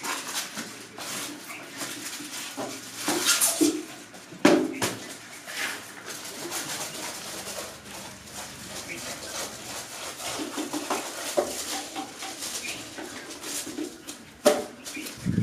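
Hands working wet paste and jute twine around a small paper-wrapped atom bomb cracker charge: irregular rustling and soft clicks, with a few sharper knocks, the loudest about four and a half seconds in.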